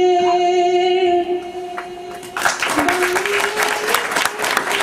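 A singer holds one long steady note over stage music; about two and a half seconds in, the audience breaks into applause, which goes on under the fading note.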